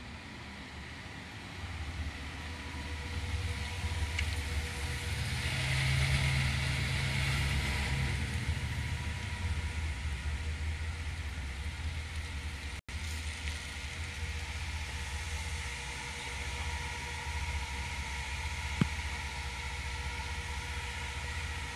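A 2021 Ford E-350 ambulance with a 7.3-litre gasoline V8 drives up and passes close, its engine and tyres loudest about six to eight seconds in. It then slows to a crawl, leaving a steady low engine hum. A single sharp click comes near the end.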